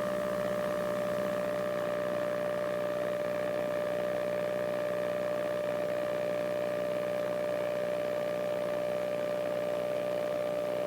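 Light aircraft engine running steadily at climb power in a KR-2S homebuilt, heard through the cockpit audio feed as an even drone with a steady high tone and little bass.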